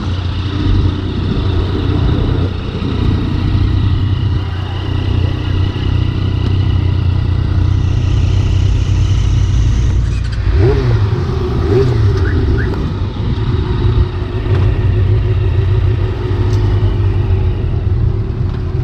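Motorcycle engine running steadily; about ten seconds in, its pitch rises as it speeds up, then holds higher.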